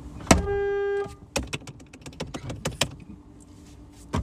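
A sharp click, then a short steady beep lasting under a second, followed by a run of faint light clicks and one more knock near the end.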